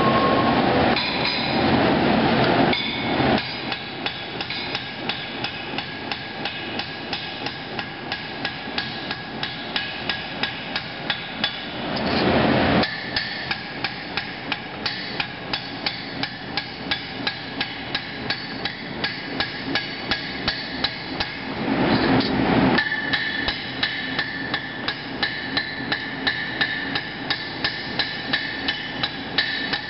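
Hand hammer striking red-hot machete handle steel on an anvil, spreading the tang out flat, at about two to three blows a second, with a ringing note after each blow. A louder rushing noise comes in briefly three times, between runs of blows.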